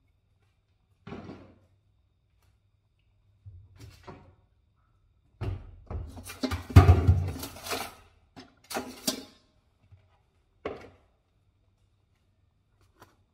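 Scattered kitchen clatter and knocks from handling the wok and taking things from a wire dish rack, with a louder run of clanks and thuds about halfway through.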